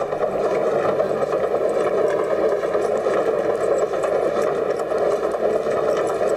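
Large wheel turning under a running dog, with a steady rumbling rattle.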